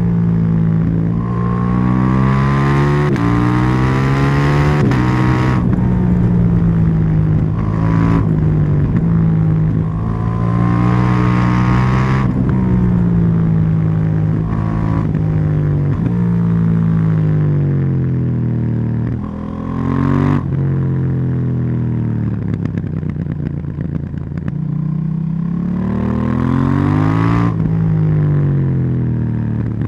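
KTM 790 Duke's parallel-twin engine pulling hard through the gears. The exhaust note climbs steadily and drops sharply at each upshift, several times over. It eases off a couple of times and winds up again near the end.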